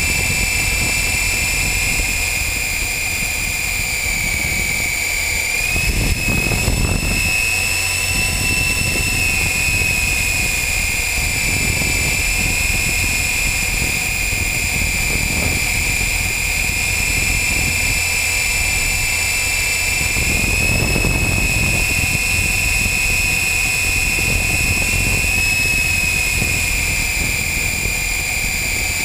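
RC helicopter in flight, heard from a camera mounted on its frame: a steady high motor and rotor whine that shifts slightly in pitch as the helicopter hovers and manoeuvres. Low rumbling swells of air buffeting the microphone come about 6 seconds in and again about 21 seconds in.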